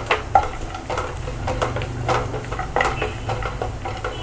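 Wooden spatula stirring and scraping cashews, raisins and grated coconut frying in ghee in a nonstick pot, knocking against the pan a couple of times a second, with a light sizzle underneath.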